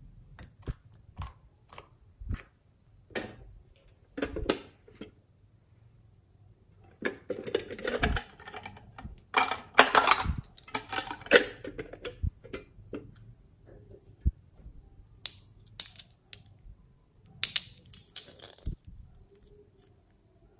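Hands handling a small plastic makeup case and the cosmetics inside it, making scattered clicks and knocks with a denser stretch of clattering and rustling in the middle. Near the end come sharper clicks as nail polish bottles are handled and opened.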